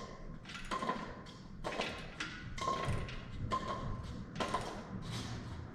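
A series of about six evenly spaced knocks, roughly one a second, each with a brief metallic ring: steel machine parts being struck during assembly.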